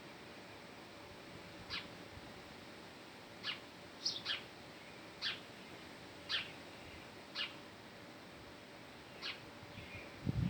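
A bird's short call notes, each dropping quickly in pitch, repeated about eight times at irregular intervals, once as a quick pair, over a faint steady hum.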